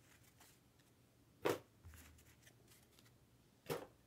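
Two brief rustles of Topps Chrome trading cards being handled and set down on a table, about two seconds apart.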